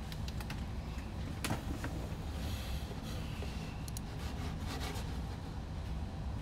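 Steady low room rumble with scattered light clicks and a brief hiss about two and a half seconds in.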